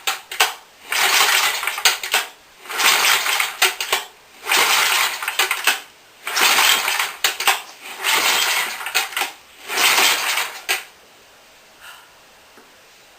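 Small single-cylinder go-kart engine being cranked over again and again, about six attempts of roughly a second each, without firing. The run of attempts stops about 11 seconds in.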